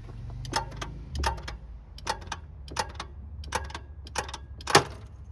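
Repeated sharp clicks from a Ford Fiesta's starter solenoid, roughly one every half to three-quarters of a second, as feed is put to the starter circuit and the starter does not crank. The mechanic diagnoses a sticking starter solenoid.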